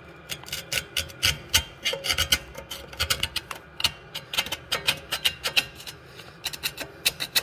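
Irregular metallic clicks and scraping of hand tools working on a corroded aluminium wheel-bearing housing, as the ABS sensor is worked loose and crusted corrosion breaks away.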